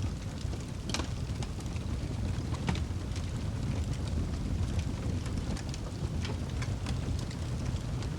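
Wood fire burning in a fireplace: a steady low rumble of the flames with frequent irregular crackles and pops, one sharper pop about a second in.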